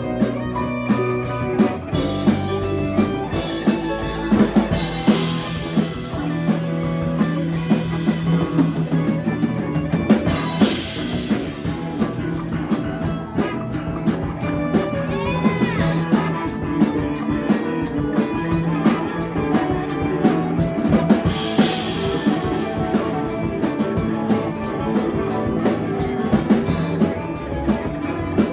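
Live rock band playing without vocals: a drum kit keeping a steady beat under guitar, over held low notes.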